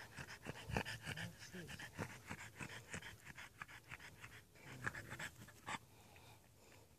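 A dog panting fast and close, several quick breaths a second, dying away about six seconds in.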